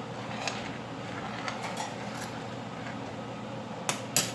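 Metal cookware and utensils clinking lightly, a few faint taps and then a sharper clatter near the end, over a steady low hum.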